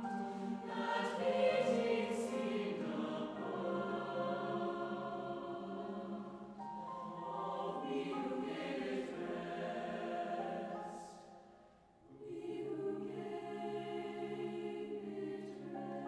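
Mixed choir singing held chords; the sound fades away about eleven seconds in and the choir comes back in about a second later.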